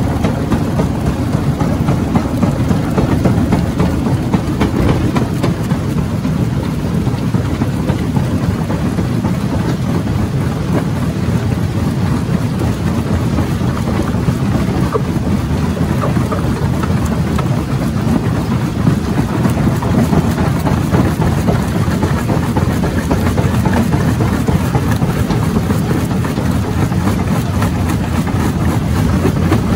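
Mobile jaw crusher running with large rocks packed in its chamber, the jaws crushing the stone: a loud, steady, heavy rumble without breaks.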